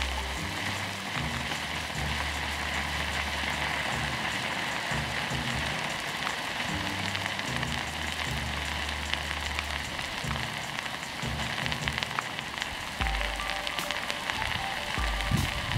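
A sugar and nitrate mixture, set off with sulfuric acid, burning with a steady hiss and scattered crackles. Background music with a low, stepping bass line plays underneath.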